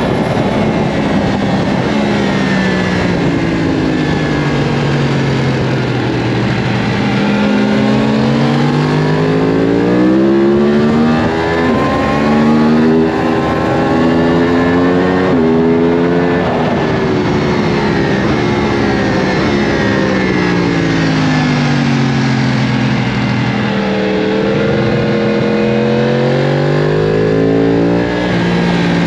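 Yamaha R1 inline-four sportbike engine running hard on track: its pitch climbs under acceleration, drops in sharp steps at each upshift, and falls away under braking into corners, twice over. A steady rush of wind noise runs underneath.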